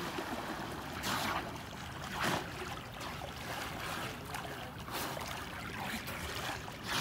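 A swimmer's front-crawl arm strokes splashing in a pool, a splash every second or two over a steady water hiss.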